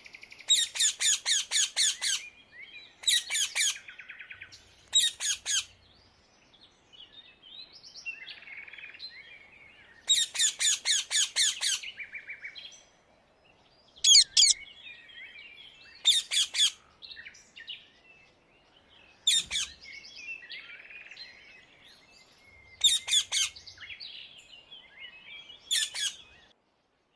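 Rose-ringed parakeets (Indian ringnecks) giving shrill screeching calls in fast series of short notes, each burst lasting a second or two and coming every few seconds, with fainter calls between the bursts.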